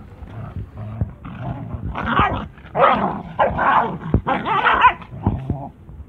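Two three-month-old Kangal puppies play-fighting, growling and barking at each other in a run of rough bursts, loudest in the middle.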